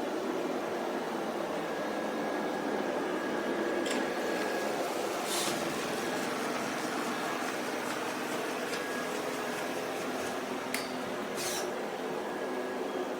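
Shark robot vacuum running with a steady whir, with a few short clicks or ticks about four, five and eleven seconds in.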